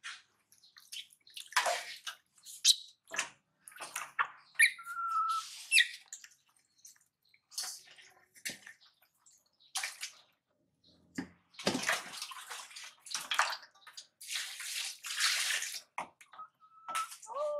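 Water splashing and sloshing in a shallow tub as a baby monkey paddles through it, in short irregular splashes, with a couple of brief high squeaks.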